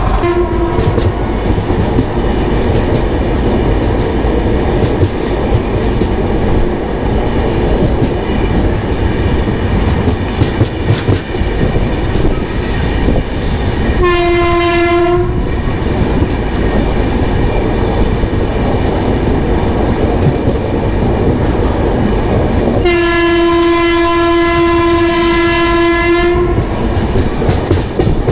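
Express train running on the rails with a steady rumble and clickety-clack. The train horn sounds twice: a short blast about halfway through and a longer one of about three and a half seconds near the end.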